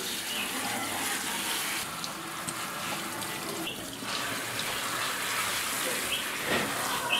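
Kitchen faucet sprayer running steadily, water spraying into a stainless steel sink and over a wet puppy's coat.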